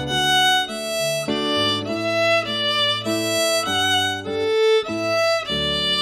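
Fiddle playing a lively tune at full performance tempo, with melody notes changing about three times a second over lower accompaniment notes. Near the end the final note is struck and held.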